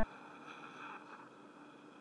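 Quiet room tone with faint, indistinct background noise, right after a sustained music note cuts off abruptly at the very start.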